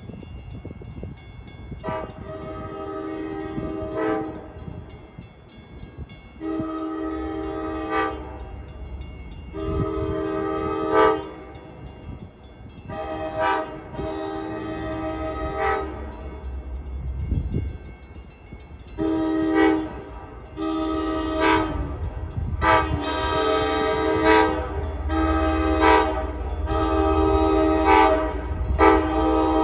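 Approaching locomotive's air horn sounding a long series of blasts, each one or two seconds long with several tones together, coming closer together and louder toward the end. A low rumble from the train grows beneath them.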